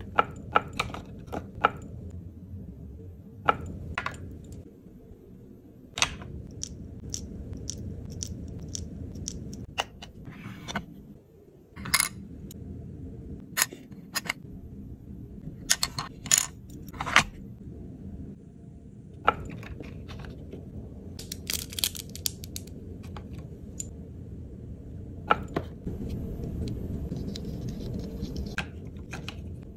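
Hands handling tiny plastic and paper miniatures: scattered sharp clicks and taps as pieces are picked up, set down and slid into a miniature drawer, with stretches of light papery rustling in the second half, over a steady low background noise.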